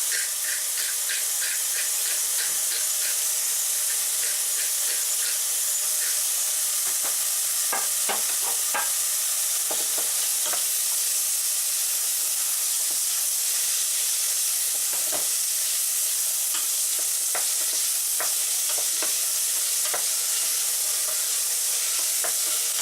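Mushrooms and chopped onion sizzling steadily in hot oil in a frying pan, browning, with scattered short clicks and scrapes of a utensil stirring them in the pan.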